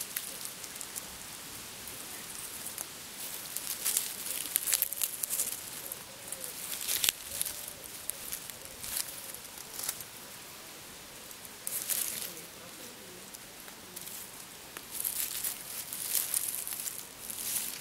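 Dry leaves and grass rustling and crackling as a hand brushes through them close to the microphone, in irregular bursts.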